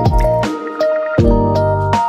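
Background music with a steady beat and short plucked notes.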